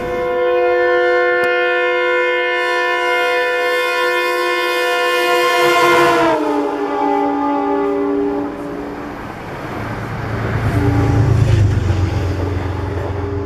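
Amtrak passenger train locomotive's horn sounding one long chord, which drops in pitch about six seconds in as the locomotive passes and then fades. Shorter horn notes come back near the end over the low rumble of the passing train.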